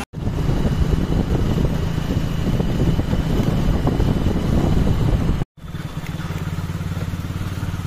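A motorcycle engine running at a steady cruise, heard from the rider's seat with some wind noise. The sound drops out for an instant twice, right at the start and about five and a half seconds in, then carries on as a smoother, steadier drone.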